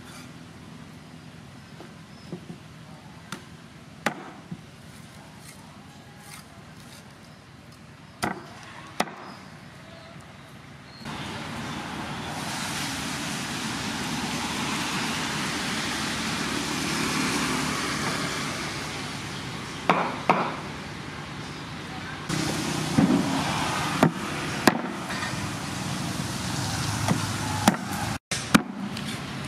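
Meat cleaver chopping pork ribs on a wooden chopping block: scattered sharp knocks, one or a few at a time. About eleven seconds in, a steady rushing background noise comes in suddenly and runs under the chops.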